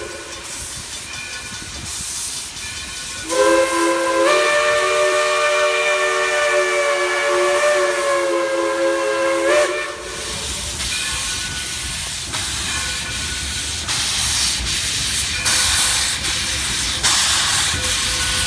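Chime steam whistle of Black River & Western steam locomotive No. 60 blowing for the road crossing: a brief toot, then one long chord blast of about six seconds whose pitch steps up slightly a second in. After the blast, the hiss, exhaust and rumble of the locomotive and its train grow loud as it draws up and passes close by.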